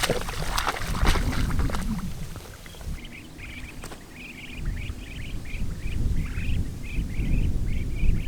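Water splashing for the first couple of seconds, then a run of short, high bird calls repeating several times a second, over a low rumble of wind on the microphone.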